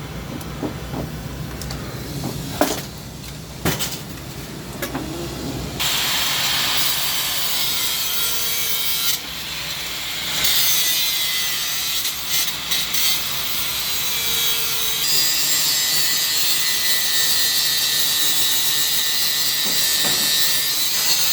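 Angle grinder dressing a weld seam on metal. A few knocks come first, then about six seconds in the disc bites with a loud, hissing grind that stops briefly around nine seconds and then runs on steadily.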